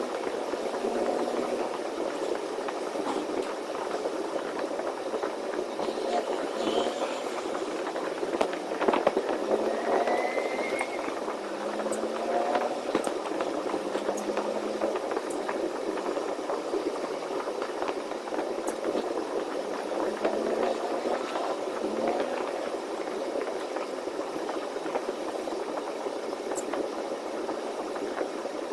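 Steady engine and road noise inside a semi-truck cab on the move, with small clicks and rattles.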